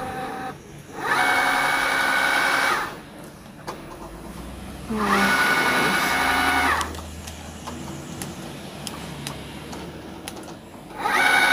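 Cricut Explore Air 2 cutting machine's motors whining in three bursts of about two seconds each, driving the mat and tool carriage while the machine scans the printed calibration sheet.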